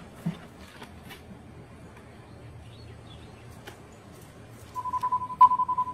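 Electronic beeping from a remote training collar system: a single steady pitch repeated in a fast run of pulses, starting near the end and lasting about a second and a half.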